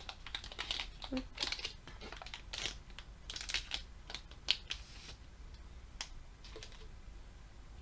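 Foil trading-card booster pack wrapper crinkling and crackling as it is pulled open and off the cards; the crackles thin out after about five seconds.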